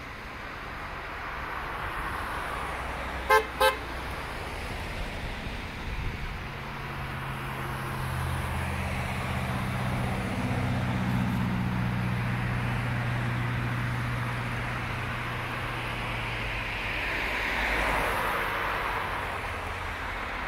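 A line of cars passing on a wet road: steady tyre noise and engine hum, with two short honks of a car horn about three seconds in.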